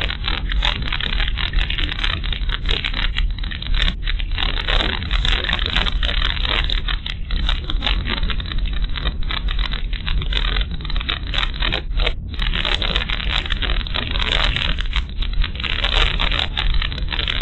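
Car in motion, heard from inside the cabin through a dashcam's built-in microphone: a steady low road rumble overlaid with dense crackling, scraping noise.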